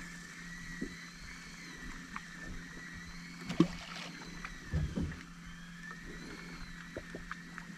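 Sounds aboard a small fishing boat on calm water: a steady low hum with a faint wavering whine over it, and scattered knocks. The sharpest knock comes about three and a half seconds in, with a duller thump a second later.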